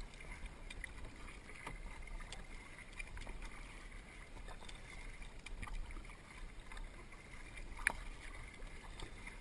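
Tandem kayak paddling: two double-bladed paddles dipping and pulling through calm water, with soft splashes and drips from the blades, scattered small knocks, and one sharp click about eight seconds in.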